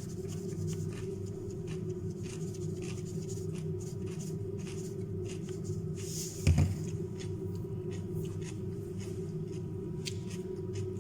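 Chewing and crunching raw carrot and cucumber close to the microphone: many small crisp clicks over a steady low hum, with one low thump a little past halfway.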